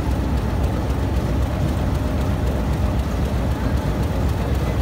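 Steady low rumble of a passenger train standing at a station platform.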